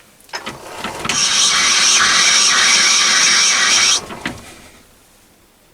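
Myford lathe starting up and running for a screw-cutting pass, with a steady whir of the gear train and a high whine. It stops abruptly about four seconds in, with a few clicks as it starts and stops.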